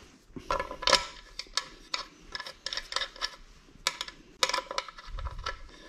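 Small metal screw and Allen wrench clicking and tapping against a bamboo rod-rack disc as the screw is fitted and turned in. The light clicks come irregularly.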